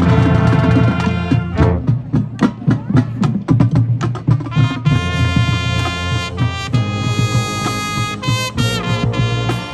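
High school marching band playing: drum hits with brief brass figures over about the first five seconds, then the brass section holding loud sustained chords.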